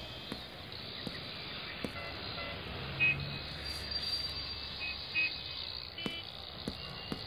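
Street ambience: a steady hum of city traffic, with a few brief high-pitched peeps about three, five and six seconds in.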